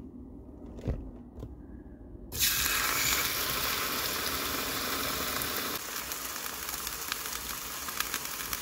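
Raw steak sizzling in a hot frying pan, the sizzle starting suddenly about two seconds in as the meat goes into the pan, with small crackles through it. A single knock comes about a second in, before the sizzle starts.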